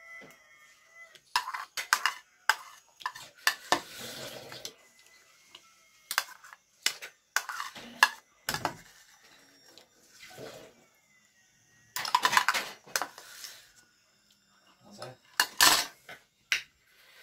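A metal spoon and fork clinking and scraping against a porcelain bowl, scooping up the last of the noodles and sauce, in a string of sharp clinks and short scrapes. Near the end the cutlery is set down in the bowl with a loud clink.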